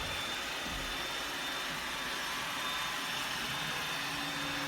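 Roomba robot vacuum running: a steady motor and suction hiss with a faint high whine. A low hum joins near the end.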